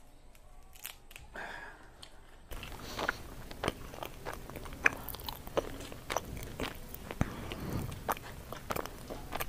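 Close-up chewing of sweet potato leaves and stems, wet and crunchy, with many sharp little clicks from the mouth. It gets louder about two and a half seconds in.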